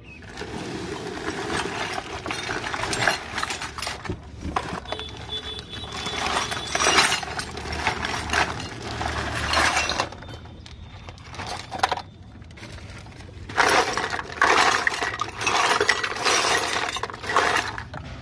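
A heap of miniature plastic and stainless-steel toy kitchen pieces clattering and clinking as they are tipped out of a plastic bag onto the floor. Two long spells of dense rattling with a quieter lull between them.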